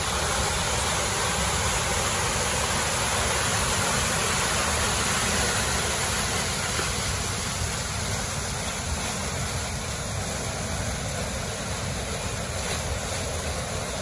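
Creek water rushing and foaming through a narrow rocky channel in a small cascade, a loud, steady rush close by that eases a little partway through.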